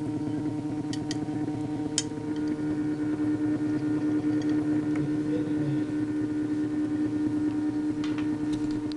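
Motor of a peristaltic pump running steadily while pumping peanut butter, a constant hum that gets a little louder about two and a half seconds in, with a few faint clicks.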